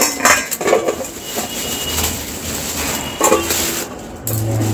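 Thin plastic carrier bag crinkling and rustling as it is handled and a cabbage is pulled out of it, with a few sharper crackles near the start and about three seconds in.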